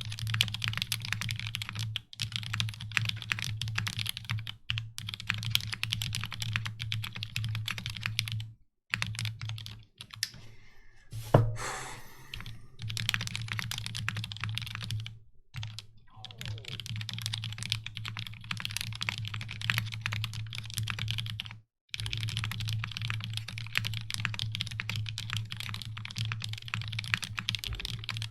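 Fast typing on a Keycult No.1/65 mechanical keyboard with a brass plate, switches with UHMWPE stems in Cherry housings, and GMK keycaps: rapid keystrokes in long runs, broken by a few short pauses.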